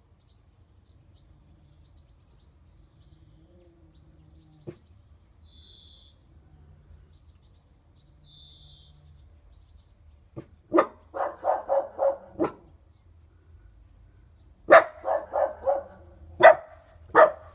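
A dog barking in quick runs of several barks a second, starting about ten seconds in after a quiet stretch, with a second run about fifteen seconds in and single barks near the end.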